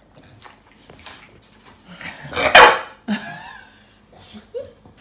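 English bulldog giving one loud bark about halfway through, followed by a short whine, begging for more of the treats on the table.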